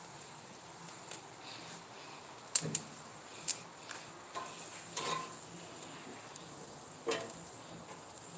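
Several sharp clicks and clatters of food being turned and shifted on a grill's metal grates, the loudest about two and a half seconds in, over a faint steady hiss.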